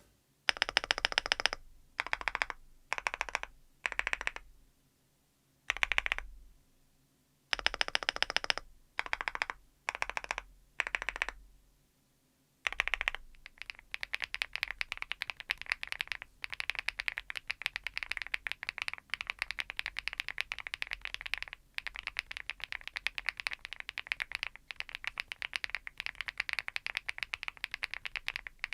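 Archon IX Pro full-aluminium mechanical keyboard: short bursts of rapid repeated presses on the large stabilised keys, each about half a second to a second long with pauses between, showing off the stabilisers. About twelve seconds in it changes to continuous fast typing, a dense run of keystroke clicks.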